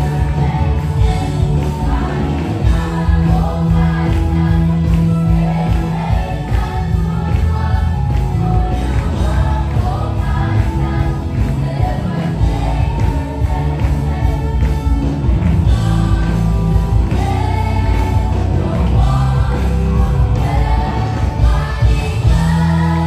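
Mixed choir of young men and women singing a gospel worship song over a steady instrumental backing, loud and continuous.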